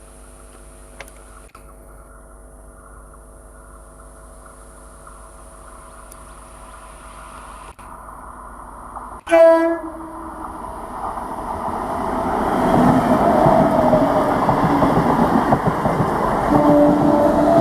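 A 12-coach electric multiple unit (EMU) train approaching: a steady hum, then a short, loud horn blast about nine seconds in, followed by a rising rumble and wheel clatter as the train passes close.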